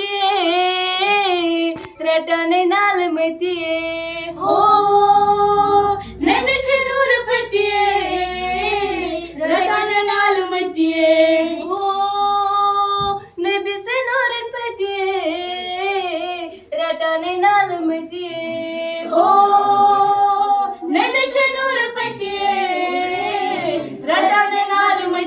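A group of schoolgirls singing a song together, unaccompanied, in a slow melody with long held notes.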